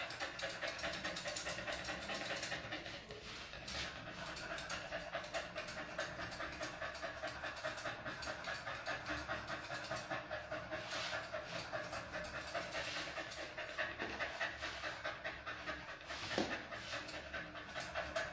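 A mixed-breed dog panting quickly and evenly with its mouth open.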